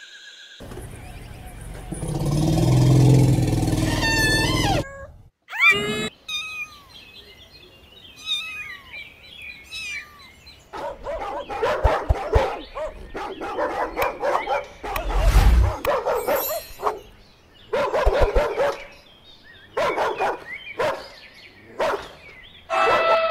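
A dog barking and yipping in many short, separate barks through the second half. Before that come a few seconds of loud rough noise and some high squeaky calls.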